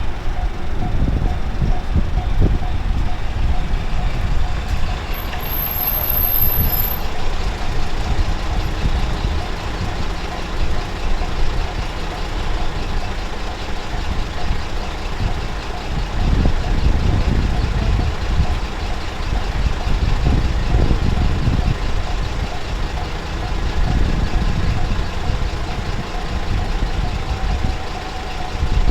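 Japanese level-crossing warning bell ringing its repeating "kan-kan" tone over a heavy low rumble.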